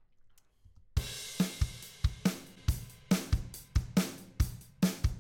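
Sampled drum-kit loop playing back: kick and snare hits with hi-hats, starting with a cymbal crash about a second in. It is playing through a compressor plugin set to a 1:1 ratio, so the plugin adds only its colour.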